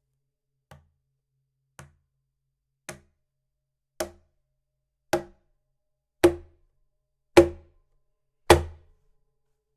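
Sela CaSela Pro cajon struck with single strokes about once a second, eight in all. Each stroke is a sharp knock with a short low boom, and the strokes grow steadily from soft to loud, showing the drum's dynamic range.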